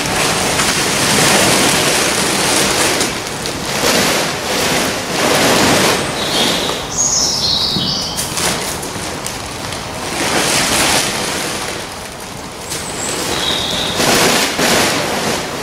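Heavy plastic silage sheeting rustling and crackling in repeated swishes as it is grabbed, dragged and bundled up by hand. A few short bird chirps are heard in between, around the middle and near the end.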